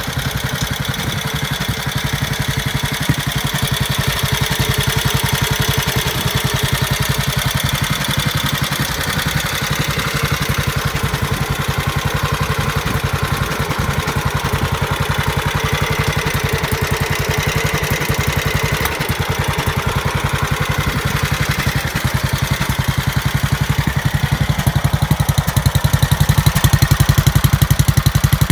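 1945 Monark Albin motorcycle's 500 cc single-cylinder overhead-valve engine idling steadily with an even, regular beat, a little louder near the end as the exhaust silencer comes close.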